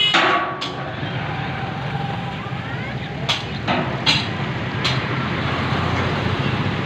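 A steady low engine hum, with a few sharp clicks about a second apart near the middle.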